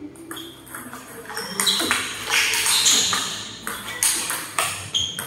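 Table tennis ball being hit back and forth: a rapid, irregular series of sharp clicks and knocks as it strikes bats and the table.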